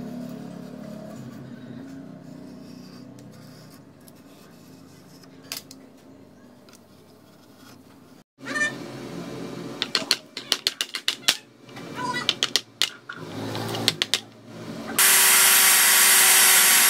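Handheld angle grinder with a sanding pad, switched on about fifteen seconds in and running loud and steady. Before it come scattered sharp clicks and knocks.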